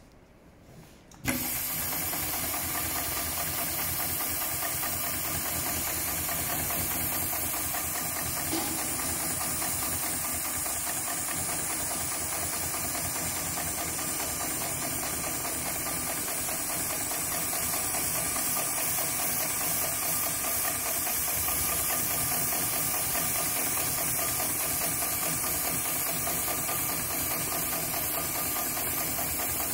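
HighTex 71008S heavy-duty automatic pattern sewing machine starting up about a second in and then sewing steadily through thick safety-harness webbing, its needle strokes a rapid, even mechanical clatter.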